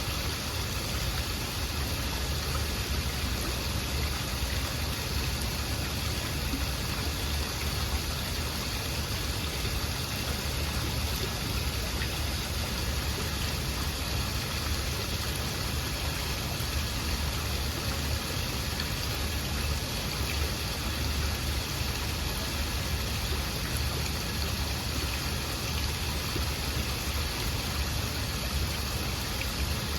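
Waterfall: falling water rushing steadily, a deep, even roar with no breaks.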